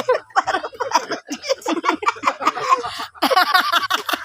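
People's voices talking, the words not made out, louder near the end.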